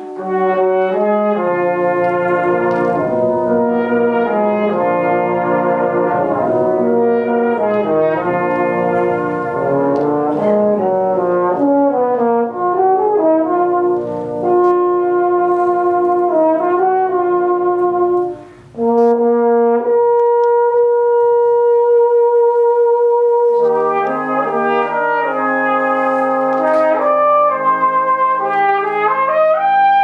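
Brass band of cornets, trumpets, horns, euphoniums, trombones and tubas playing together in dense, loud chords. After a brief break about two-thirds through, a single long note is held for several seconds before the full band comes back in.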